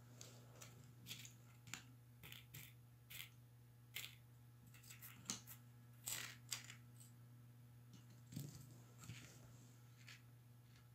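Light metallic clicks and taps, about fifteen at irregular intervals, as small laptop screws are removed with a screwdriver and set down in a pile on the table.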